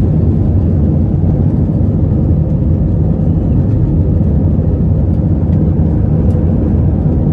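Airbus A320 jet engines at takeoff thrust heard from inside the passenger cabin during the takeoff roll: a loud, steady, low noise with a faint steady tone above it.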